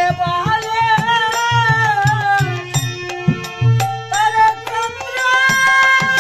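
A woman singing a Bengali devotional kirtan to her own harmonium, with a drum and light percussion keeping a steady beat. About five seconds in she holds one long steady note.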